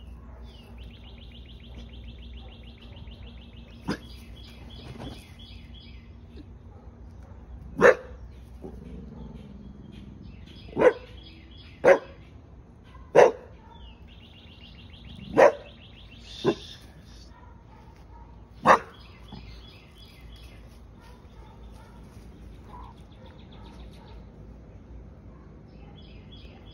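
Pit bull barking in single sharp barks, about seven of them spread over some eleven seconds starting about eight seconds in. Between and around the barks, birds chirp in rapid high trills.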